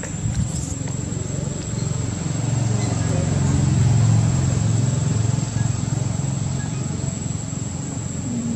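Low engine rumble, like a passing vehicle, growing louder to a peak about four seconds in and then fading.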